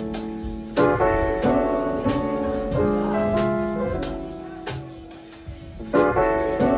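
Slow piano music: chords struck every second or so, each left to ring and fade before the next.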